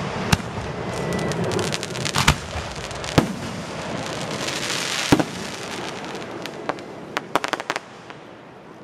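Aerial fireworks shells bursting with four sharp bangs in the first five seconds over a dense crackling hiss, then a quick run of smaller pops near the end.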